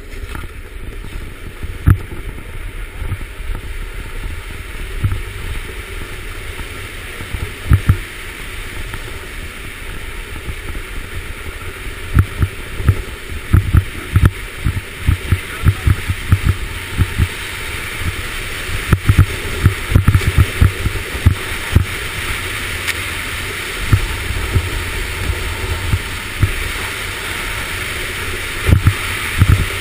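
Skeleton sled running fast down an ice track: a steady rush from the steel runners on the ice and the air, broken by many sharp low thumps and knocks as the sled jolts along. The knocks come thickest from about halfway through.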